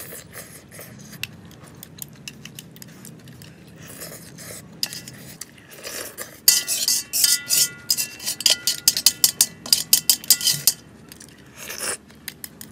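Metal spoon and chopsticks scraping and clinking against a steel wok, the wok ringing after each strike. The clatter starts about halfway through as a quick, irregular run of knocks and stops shortly before the end, after a quieter stretch of small clicks.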